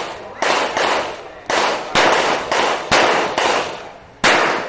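A rapid string of revolver shots, about eight, spaced roughly half a second apart, each sharp crack dying away in a short ring-out; the last, near the end, is the loudest.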